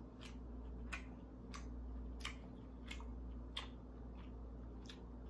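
Close-miked chewing of a mouthful of crispy, breaded deep-fried lobster tail: a small crunchy click with each chew, roughly one every two-thirds of a second, over a low steady hum.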